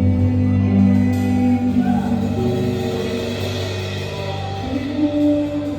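Slow worship music: sustained chords held and changing slowly between sung lines.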